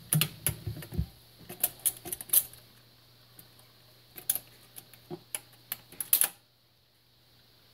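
Automatic record changer of a 1966 Penncrest console stereo cycling at the end of a record: a string of mechanical clicks and clunks as the tonearm lifts and swings back to its rest, with a heavier thump about a second in. The sound stops abruptly about six seconds in, as the changer shuts off.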